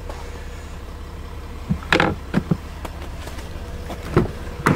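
Low, steady hum of the Range Rover Sport's diesel engine idling, with a handful of sharp knocks and clunks about two seconds in and again near the end.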